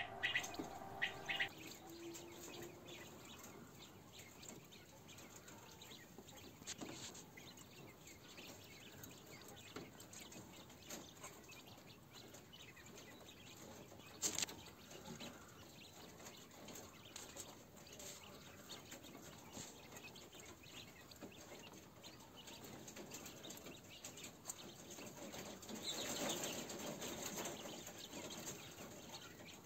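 Chinese painted quail (king quail) moving about a wire cage: faint rustles and small clicks, one sharper click about halfway, and a louder flurry of movement near the end.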